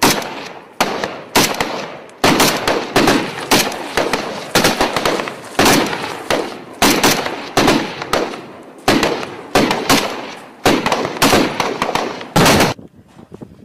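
Small-arms gunfire: a rapid, uneven string of loud rifle shots, single and in short bursts, each ringing out in an echo. It stops about a second before the end, leaving only faint pops.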